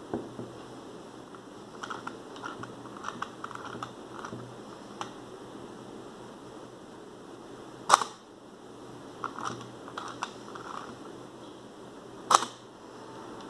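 Zorki 1 rangefinder camera being wound and fired: the winding knob ratchets with a series of small clicks, then the cloth focal-plane shutter fires with a sharp clack. This happens twice, with the second release near the end.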